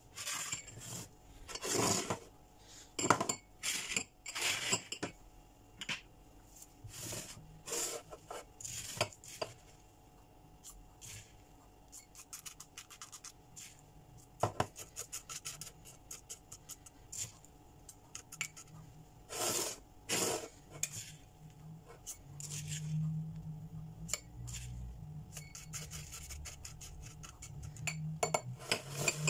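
A plastic spoon scooping crushed butter-biscuit crumbs out of a ceramic dish and into small glass cups. It makes irregular short scrapes against the dish and taps and clinks on the glass.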